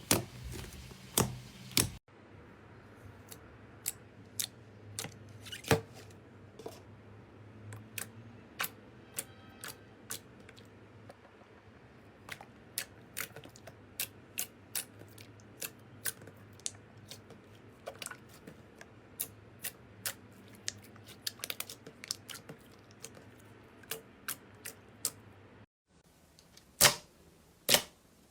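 Slime being squeezed and poked by hand, giving sharp, irregular pops and clicks, a few a second.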